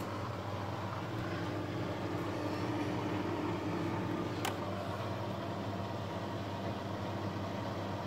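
Grundig front-loading washing machine running with water in the drum, a steady motor-and-drum hum, turning a little faster again. There is a short sharp click about four and a half seconds in.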